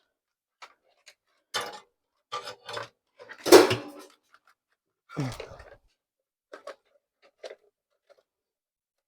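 Handling noise from speaker parts being worked by hand: a run of clicks, rattles and knocks, the loudest knock about three and a half seconds in, then a scraping rustle and a few faint ticks.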